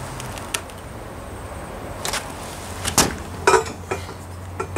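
Handling noise: a few short, sharp knocks and clicks over a low hum, the loudest about three seconds in and again half a second later.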